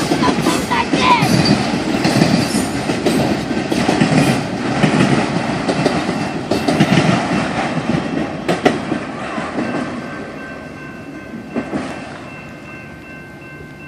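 A long train rolling past, its wheels clacking and rumbling over the rail joints. The rumble dies down over the last few seconds, leaving faint steady tones.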